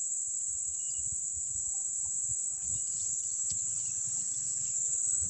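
Steady, high-pitched buzz of insects, with a low, uneven rumble underneath.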